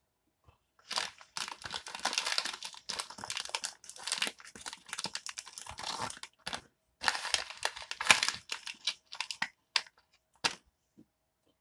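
Plastic snack wrapper being handled and crumpled, crinkling in irregular bursts, with a short pause a little past halfway. It stops about ten and a half seconds in.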